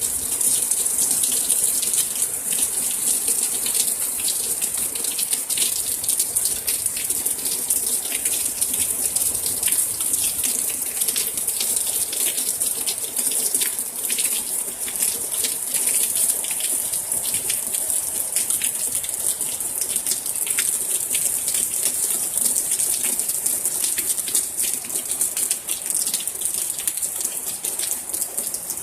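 Heavy downpour of rain falling steadily: a dense hiss with many close drops ticking, easing a little near the end.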